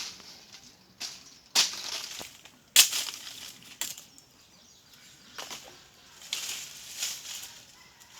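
Tree cutting: four sharp, irregularly spaced chopping knocks on wood in the first four seconds, then softer bursts of rustling hiss.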